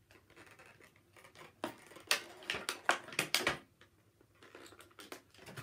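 Clear plastic packaging crinkling and clicking in quick crackly clusters as hands work an action figure free of its twist ties, with a short lull about four seconds in.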